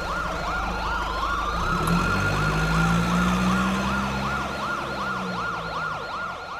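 Fire truck siren: a fast yelp rising and falling about three times a second, with a slower wail sweeping up and back down beneath it. Under it a low engine rumble grows louder toward the middle and then fades.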